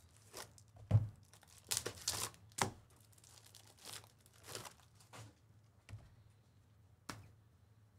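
A trading card pack's foil wrapper being torn open and crinkled, heard as a string of short, irregular rustles with a soft knock about a second in.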